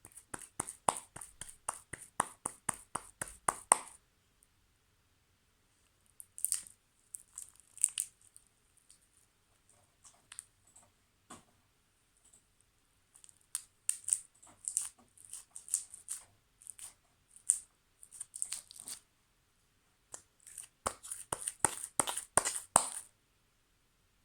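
Slime being kneaded and stretched by hand, giving rapid runs of sticky pops and clicks in several bursts with short pauses between.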